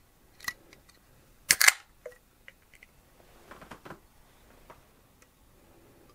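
Aluminium beer can being opened: a small click, then about a second and a half in the pull-tab cracks open with a short hiss, followed by a few faint clicks and handling sounds.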